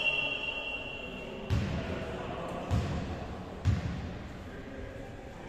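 A volleyball bounced three times on a hardwood sports-hall floor, about a second apart, each thud echoing in the hall. The tail of a referee's whistle fades out right at the start.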